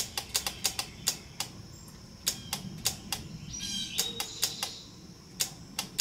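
Sharp, irregular clicking from the Honda CBR600 engine's starter circuit as the start button is pressed, with no cranking and no engine running. This is a starter motor that the builder says sometimes has to be bumped to turn over.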